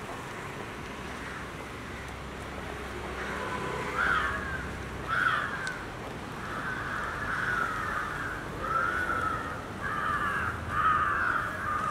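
Crows cawing repeatedly, starting about four seconds in, over a low steady street background.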